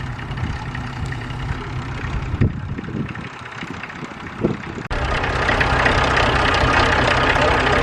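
Vintage tractor engines idling steadily. About five seconds in, the sound cuts sharply to a louder, closer diesel idle: a Fordson Major's Perkins diesel engine running.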